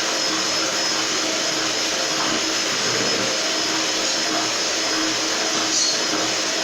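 Electric mixer beating cake batter, running steadily with a constant hum and a high whine. The batter has been thinned with milk, so the motor runs freely at speed instead of labouring.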